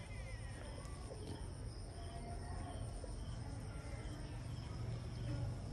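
Faint outdoor background of steady, high-pitched insect chirring over a low hum.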